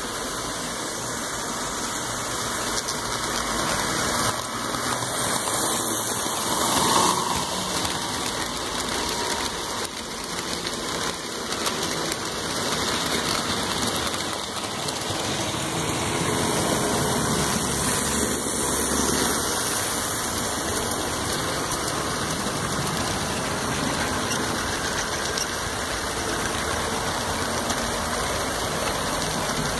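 HO scale model trains rolling past close by: a steady rumble of wheels on the track and the locomotive motors, swelling a little as cars go by.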